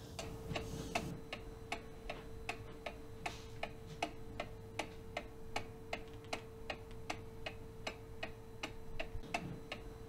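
Steady, even mechanical ticking, several sharp ticks a second, over a faint steady hum.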